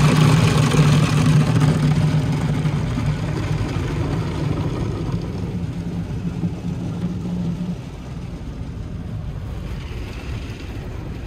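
PDQ ProTouch Icon soft-touch car wash at work, heard from inside the car: foam brushes scrubbing and water spraying over the glass over a steady machine hum. The hum stops a little over two-thirds of the way through, leaving the spray at a lower level.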